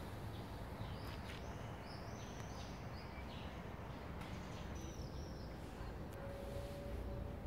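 Small birds chirping and calling in short, bending notes over a steady low outdoor rumble. A faint steady hum starts about six seconds in.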